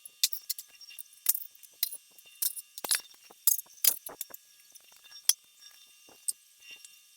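Irregular sharp metallic clinks and clacks as aluminum intake parts and hardware are handled and set down, about fifteen in all, thinning out near the end.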